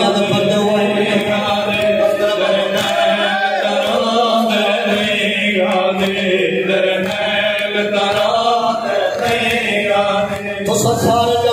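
Men chanting a Saraiki noha, a Muharram lament, into microphones: a lead reciter with other voices joining in on long held notes.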